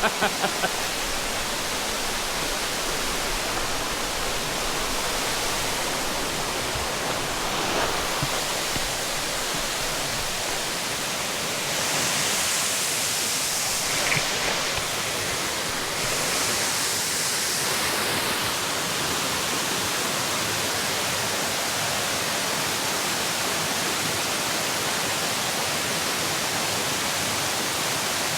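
Steady rush of flowing water from a creek, with two louder, hissier stretches around the middle.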